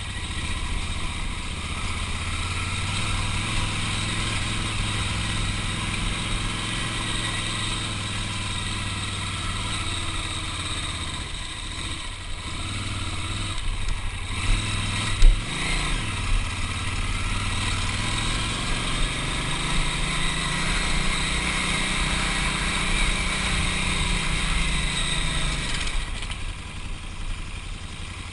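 Big adventure motorcycle's engine running on a rough dirt trail, its pitch rising and falling with the throttle, under a steady rushing noise. There is one sharp knock about halfway through, and the engine eases off near the end.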